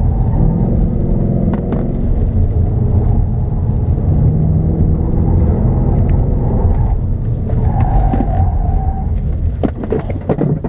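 Ford Mustang GT's 5.0-litre V8 running at steady, moderate revs as the car is driven, heard from inside the cabin, with a few sharp knocks near the end.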